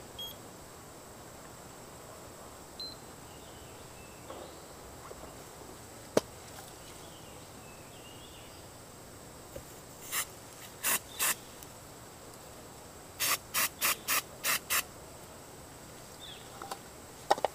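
Short hissing bursts: three spaced out, then a quick run of six, over a faint steady high whine, with one sharp click about six seconds in.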